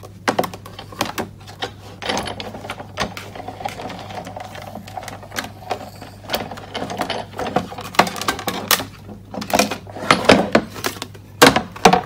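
Sizzix Big Shot die-cutting machine being hand-cranked, rolling an embossing folder sandwich of clear acrylic plates and cardstock through its rollers with a steady grinding rumble for several seconds, to emboss a corrugated pattern into the card. Clicks and plastic clatter of the plates being set down and handled come before and after the cranking.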